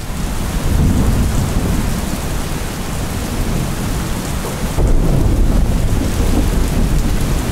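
Rain pouring down, with a low rumble of thunder that swells a little under five seconds in.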